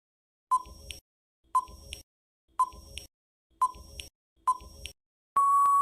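Countdown-timer sound effect: five short electronic beeps about a second apart, then one longer steady beep near the end signalling that time is up.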